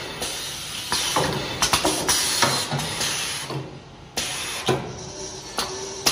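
Paper cake-box forming machine running, with repeated sharp clacks from its moving parts and hissing bursts of air.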